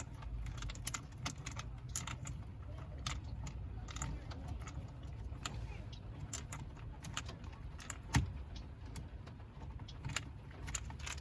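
Irregular light clicks, taps and rattles of a plastic trim piece and small parts being worked off by hand around a car's steering column, with one sharper knock about eight seconds in.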